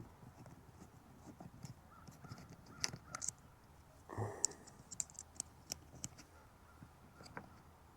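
Faint scattered clicks and taps of the screwless rear camera plate being handled and worked loose from the camper wall, with one short call-like sound about four seconds in.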